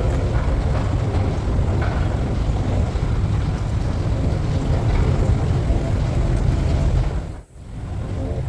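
Steady low rumble of a subway train running, with a faint hum above it; it dips sharply for a moment about seven and a half seconds in.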